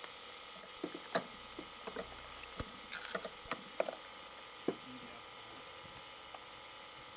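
Camcorder handling noise: about a dozen light clicks and knocks, scattered irregularly over the first five seconds, above a faint steady hiss.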